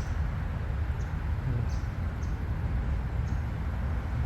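Wind rumbling on the microphone of a moving bicycle, a steady low noise, with a few faint short high chirps now and then.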